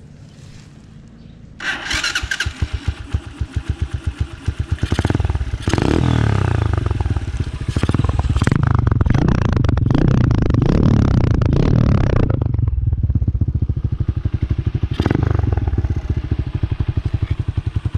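Earl 150cc motorcycle engine and exhaust during a sound check: it idles, then is revved in quick throttle blips from about two seconds in, held at high revs rising and falling from about five to twelve seconds, then drops back to idle with one more blip near fifteen seconds.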